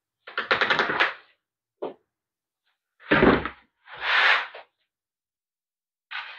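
Old seat cover being ripped off a boat cooler cushion's plastic base, tearing free of the staples rather than having them pried out. Several separate rips, the first about a second long with a fast crackle, and a heavier one about three seconds in with a low thud.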